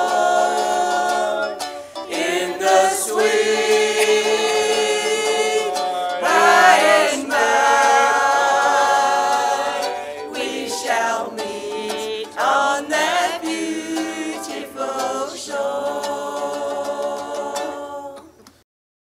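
Background music: a choir singing without accompaniment in slow, held chords. It fades out and stops just before the end.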